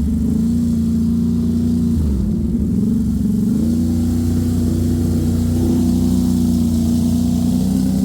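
ATV engine running under way. The revs fall away about two seconds in and climb back up a second or so later, then hold steady.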